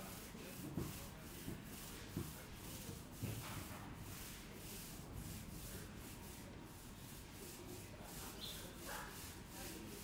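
Paint roller rolled up and down a wall in repeated strokes, a faint sticky rubbing, with a few soft knocks in the first few seconds.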